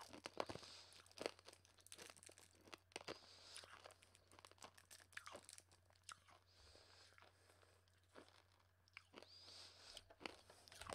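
Quiet, irregular crunching and clicking of an Atomic Fireball hard candy being bitten and chewed close to the microphone.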